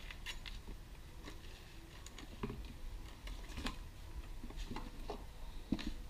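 Light scattered clicks and rustles of hands handling a black plastic plant pot and its wire hanger, with a few sharper ticks, over a low steady background.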